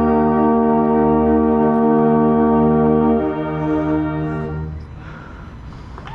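Marching band brass holding one loud, sustained chord. A low note drops out about three seconds in, and the whole band cuts off together near the end, leaving a quieter background of noise.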